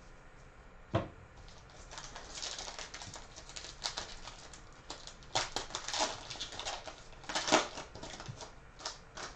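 Foil trading-card pack wrapper being torn open and crinkled by hand, in irregular crackly rustles, with a sharp click about a second in and louder bursts of crinkling toward the middle and about two-thirds through.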